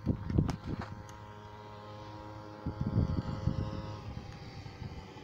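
A motor vehicle's engine running steadily, with bouts of low rumble over it near the start and about three seconds in.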